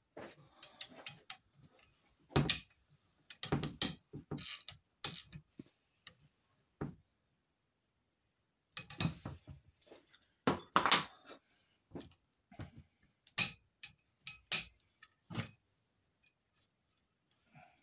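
Irregular metal clicks, clinks and clunks as a home-built crossbow's metal limbs and linkage arms are handled and worked on a wooden workbench, with a few louder knocks and a pause of about two seconds midway.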